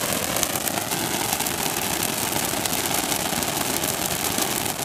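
Ground fountain firework (anar) spraying sparks: a steady, loud rushing hiss with dense fine crackling throughout.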